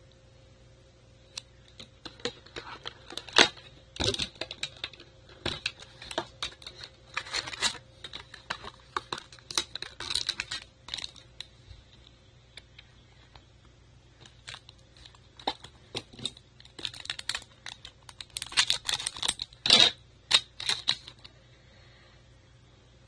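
Trading-card foil packs and cards being handled: irregular crinkles, rustles and small clicks in clusters, loudest about three and a half seconds in and again near twenty seconds, with a few quiet seconds around the middle.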